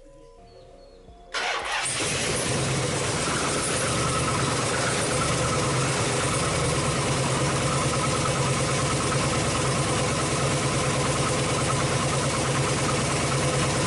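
The 2005 Chrysler 300C's 5.7L Hemi V8 comes in abruptly about a second in and runs at a steady idle.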